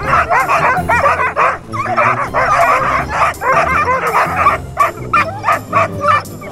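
A pack of Greenland sled dogs barking, yipping and whining all at once in a dense, excited chorus, typical of a dog team at feeding time. Near the end the chorus thins into separate sharp barks.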